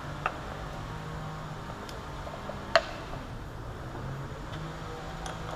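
Metal clinks and knocks as a steel square-tube fixture holding a pipe is flipped and set back into a milling-machine vise: a sharp knock just after the start and a louder one a little before the middle, with a few faint ticks. A steady low hum runs underneath.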